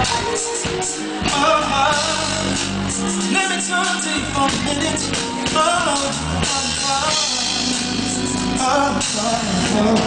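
Live R&B band playing, with a male singer's vocal runs over the top.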